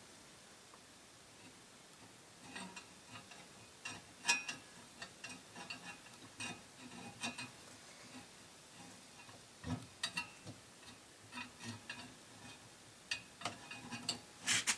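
Irregular metallic clicks, taps and clinks of the Rock-Ola 443 jukebox's record carousel being handled and fitted back onto its mechanism by hand, starting after a couple of seconds, with one louder knock about ten seconds in.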